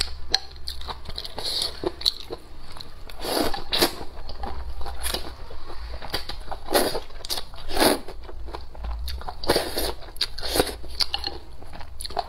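Close-up eating sounds of a person eating noodle soup: chewing with wet mouth clicks and smacks, broken by several short slurps as noodles are sucked in.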